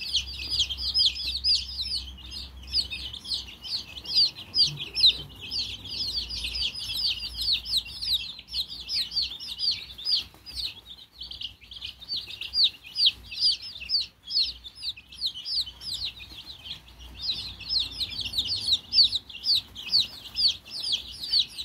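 A brood of young chicks peeping continuously: a dense stream of short, high-pitched peeps from many birds at once, overlapping without pause.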